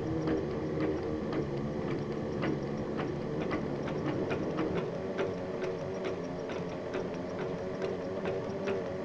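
Machinery running steadily: a low drone and hum with a regular clicking rhythm of about two to three clicks a second.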